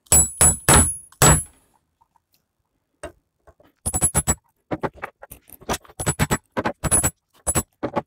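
Hammer blows on a metal drift, knocking the sawn-off remnants of the copper secondary winding out of a microwave oven transformer's core. Four blows come at the start, some with a high metallic ring, then after a pause of about a second and a half a long run of blows follows in quick clusters.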